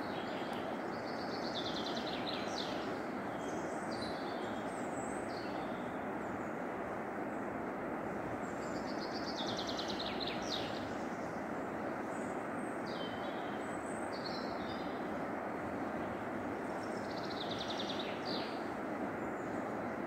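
Songbirds singing short trilled phrases, one every few seconds, over a steady rushing background noise that is louder than the birds throughout.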